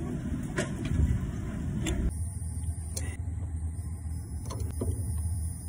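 A few short, sharp metal clicks of pliers and a screwdriver working the turnbuckles on a sailboat's backstays as they are tightened, over a steady low rumble.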